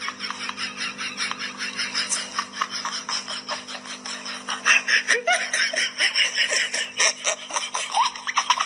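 A person laughing and giggling in quick, repeated bursts, over a steady low hum.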